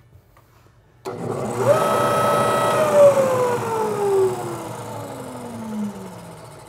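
American Sanders Legend belt floor sander switched on about a second in: the motor and sanding drum spin up quickly to a steady whine and run for about a second. Then it is switched off and winds down with a long falling whine. It is a short test run to check belt tracking, and the 100-grit belt tracks spot on.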